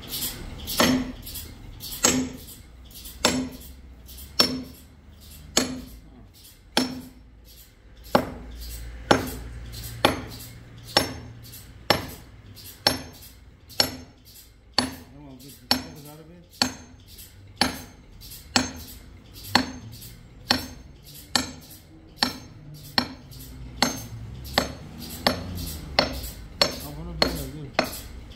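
Sharp metallic clinks repeating steadily about once a second, a little faster in the second half, over a faint low hum of machinery.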